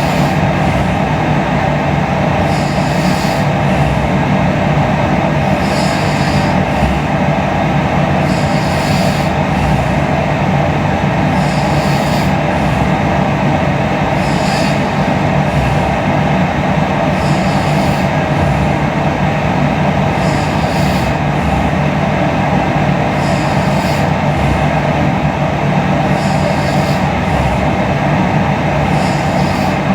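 Steady, loud rumbling noise with no rise or fall, with a soft breath-like hiss repeating about every three seconds, in time with a sleeping person's breathing.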